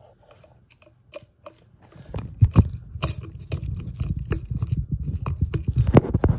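Hands working a screwdriver on the screws of a ceiling fan's metal motor housing: a few faint clicks, then from about two seconds in a dense run of close clicks, scrapes and knocks over a low rubbing rumble.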